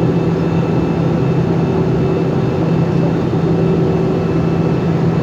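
Airliner cabin noise: a steady drone of jet engines and airflow with a constant low hum, unchanging throughout.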